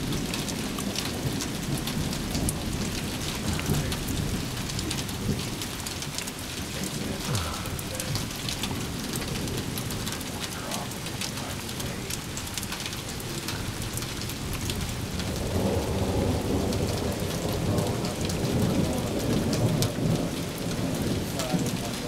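Steady rain falling during a thunderstorm, with thunder rumbling low underneath; the rumble swells about two-thirds of the way through.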